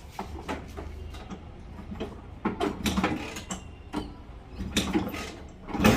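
1991 Bajaj Super scooter's two-stroke single-cylinder engine being kick-started after standing for a long time: scattered mechanical clicks and clunks from the kick-starter, then the engine fires and catches near the end.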